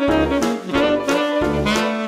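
Background jazz music: a saxophone melody over a steady beat.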